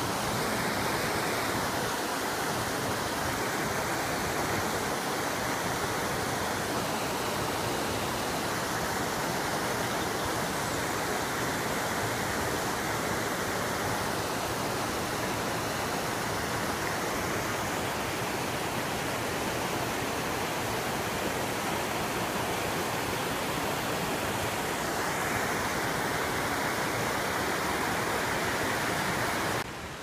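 A small rocky stream cascading in white water over stones: a steady, even rush of water that swells slightly now and then and cuts off just before the end.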